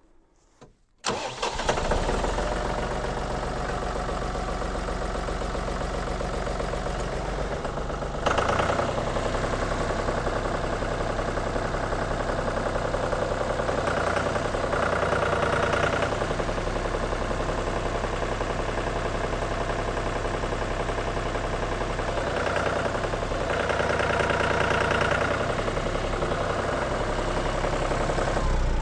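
John Deere 5320 tractor's diesel engine starts about a second in and runs, getting louder about eight seconds in. The tone changes at times as the loader hydraulics are worked to test the freshly resealed curl cylinder.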